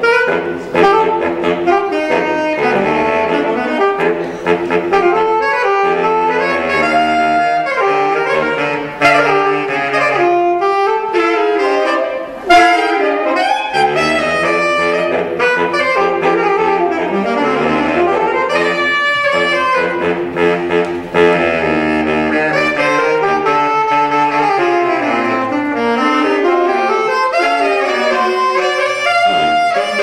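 A saxophone quartet playing a fast jazz piece, several saxophone lines moving at once in quick runs and interlocking parts.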